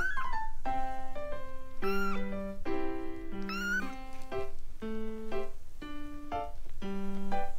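Newborn kittens mewing: three thin, high-pitched mews, one at the start, one about two seconds in and one about three and a half seconds in. Background music of gently held notes plays throughout.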